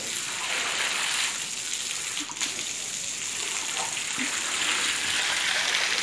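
Water gushing steadily from a hose onto a wet floor as a cowshed is washed down.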